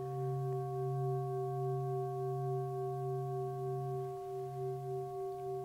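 Brass singing bowl ringing on after being struck, several steady tones sounding together with a slow wavering as it gradually fades.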